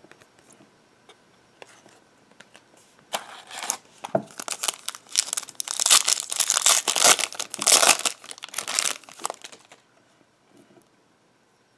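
Foil wrapper of an O-Pee-Chee Platinum hockey card pack being torn open and crinkled by hand: a run of crackling starting about three seconds in, loudest in the middle, and stopping shortly before the end.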